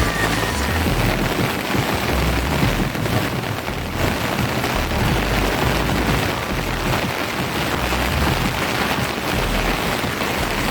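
Heavy rain falling steadily, with a low uneven rumble underneath.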